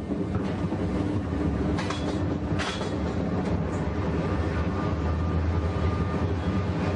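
Roller coaster train running on its track: a steady low rumble, with two brief clatters about two and three seconds in.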